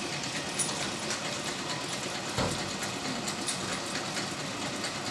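A motor running steadily, with three or four short knocks along the way.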